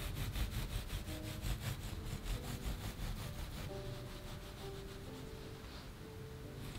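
Long serrated knife sawing back and forth through a sponge cake layer on a wooden cutting board, in quick, even rasping strokes that fade after about four seconds.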